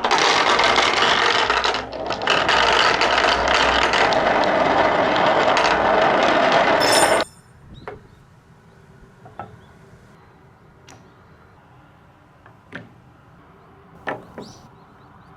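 Many marbles rolling and rattling down a wooden HABA marble run track, a loud dense rattle that stops suddenly about seven seconds in. After that come scattered single clicks of marbles knocking against the wooden parts.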